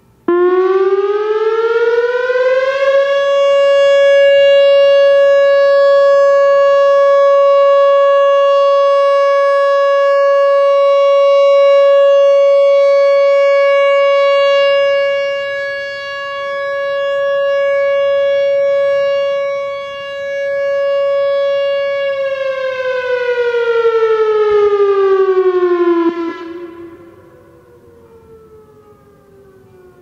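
Whelen WPS-3000 electronic outdoor warning siren sounding its steady-tone alert signal. The tone slides up in pitch over about three seconds, holds steady for roughly twenty seconds and swells and fades as the rotating speaker array turns, then slides back down and stops, leaving a fading echo.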